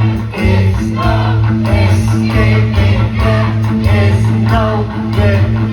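Live rock band playing loudly, with guitars over a steady bass line.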